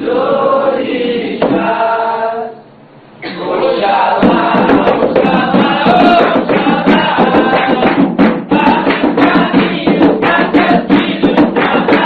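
Umbanda pontos for Oxalá: voices sing the last line of one song, then a brief break about three seconds in, and the next song starts with tambourine and drums beating fast under the singing.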